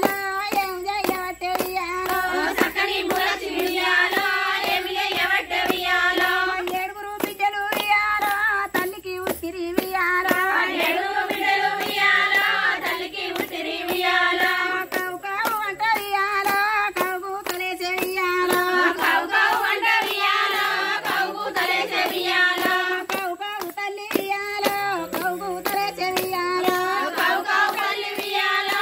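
A group of women singing a Telugu Bathukamma folk song together while clapping their hands to a steady beat as they dance in a circle.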